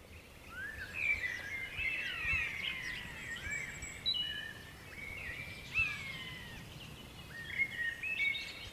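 Songbirds singing and calling together, a busy chorus of overlapping chirps and whistled notes that fades in over the first second.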